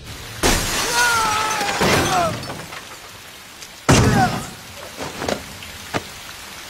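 Film fight sound effects: a sudden crash with a drawn-out yell, then about four seconds in a loud impact with breaking glass as a body slams onto a car roof, followed by a short cry and a few lighter knocks.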